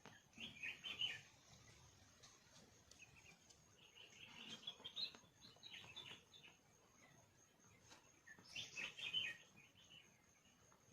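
A bird calling faintly in three short bursts of high chirps, about four seconds apart.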